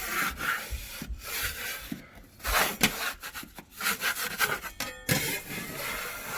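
A putty knife scraping high spots off dried spackle on a drywall patch: a series of irregular rasping strokes.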